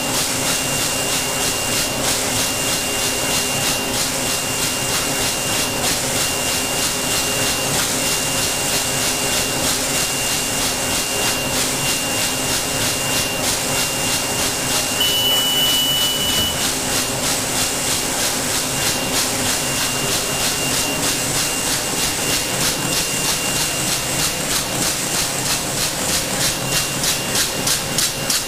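CT-9914 plastic bag wicketing machine running, its rotary stacking arms cycling with a fast, even rhythmic clatter over a steady hum and hiss. A brief higher whistling tone sounds about halfway through, and the rhythm stands out more sharply near the end.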